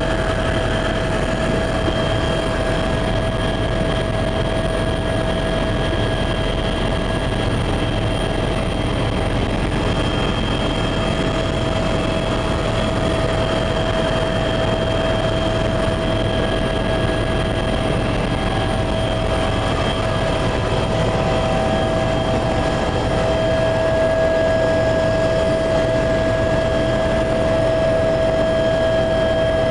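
Helicopter cabin noise in level flight: a steady drone of turbine and rotor with a constant whine over it, heard from inside the cabin.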